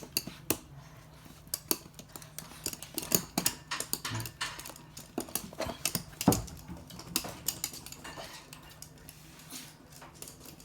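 Toy poodle's claws clicking and tapping irregularly on a hard floor as it runs the course, with a faint steady hum underneath.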